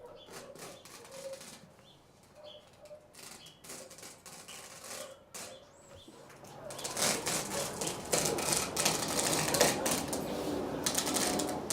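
Utility knife blade cutting along a window screen frame, slicing off the excess screen mesh just above the rubber spline. Faint scratches and clicks at first, then from about halfway through a louder, continuous rasping crackle as the blade runs through the mesh.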